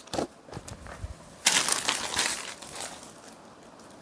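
Crisp rustling and crinkling of a printed brasso saree being unfolded and spread out by hand, with a louder swish of the cloth about one and a half seconds in that fades away.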